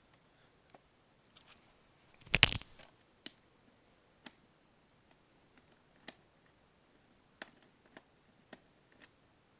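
Scattered small clicks and taps of a screwdriver and screws against a plastic VHS cassette shell as its screws are taken out, with one louder clatter about two and a half seconds in.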